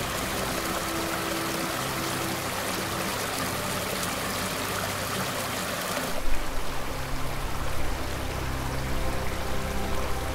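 Rushing water of a mountain stream with background music underneath. About six seconds in the water sound cuts back suddenly and the music, with deeper low notes, comes forward.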